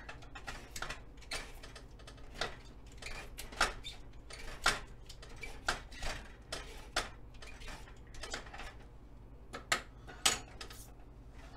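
Vegetable peeler scraping the fibrous outer layer off an artichoke stem in a series of short strokes, about one or two a second, irregularly spaced.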